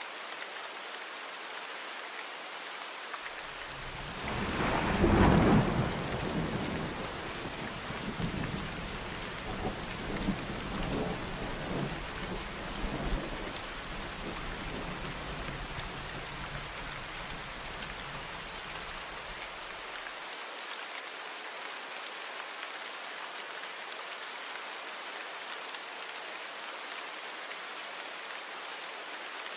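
Steady rain falling, with a roll of thunder a few seconds in. The thunder is loudest at the start, rumbles on in smaller swells, and fades out after about fifteen seconds.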